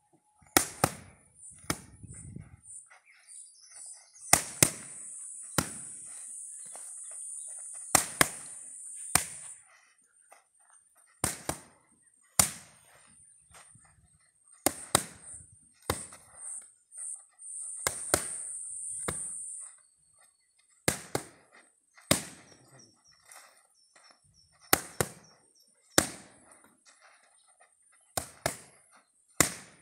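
Boxing gloves striking focus mitts: sharp smacks, singly or in quick pairs, a second or two apart.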